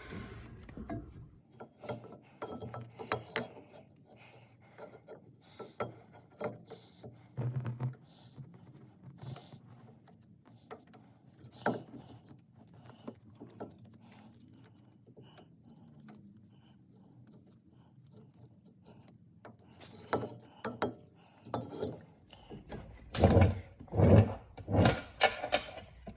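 Hand tools and brake parts being handled on a car's rear brake assembly: scattered metal clicks and clinks, with a burst of louder knocks and ratchet-like clicking near the end as the caliper bolts are started.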